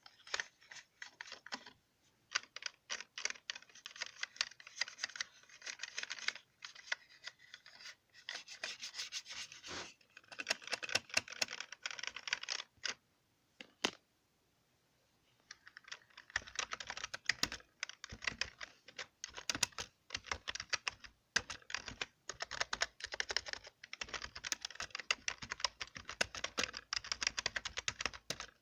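Computer keyboard keys tapped and clicked in quick, dense flurries, with a short pause about halfway through before the clicking resumes.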